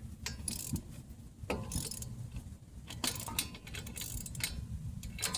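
Socket wrench and metal sockets clicking and clinking in scattered, irregular strokes, some with a short metallic ring.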